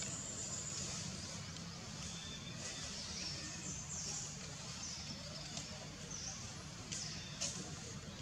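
Outdoor ambience: a steady low hum under faint, high bird chirps, with a couple of short clicks near the end.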